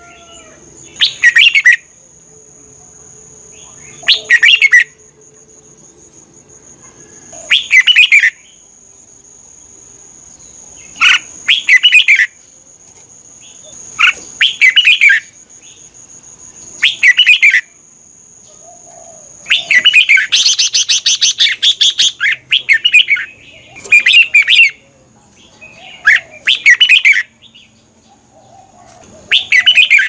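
Red-whiskered bulbul singing: about ten short, loud phrases spaced every two to four seconds, with one longer, busier phrase about twenty seconds in.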